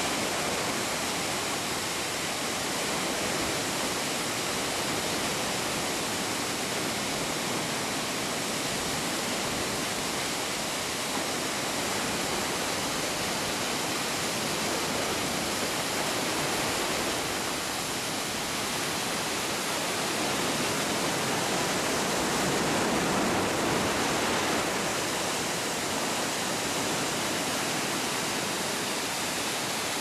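Steady rush of a small spring-fed waterfall falling down a cliff face and splashing at its base, growing a little louder for a few seconds past the middle.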